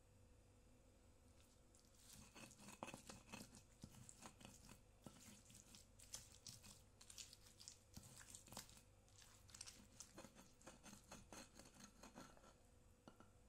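Stone pestle crushing and grinding chillies and small tomatoes in a stone mortar (cobek and ulekan): quiet, irregular wet crunching and stone scraping, starting about two seconds in.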